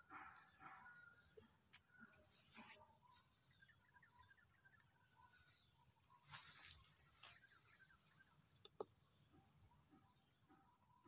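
Faint, steady high-pitched chirring of insects with an even pulsing rhythm, under scattered faint bird chirps. A single sharp click comes near the end.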